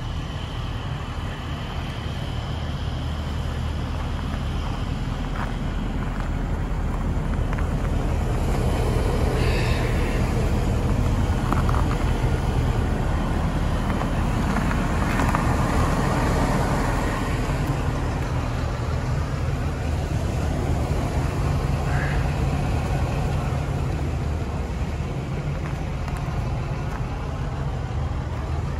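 Chevrolet Express 3500 box truck's engine idling steadily.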